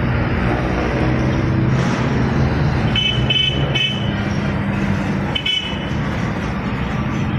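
Road traffic passing close by, with the steady hum of engines as a container truck goes past. A vehicle horn gives several short toots about three seconds in and one more about five and a half seconds in.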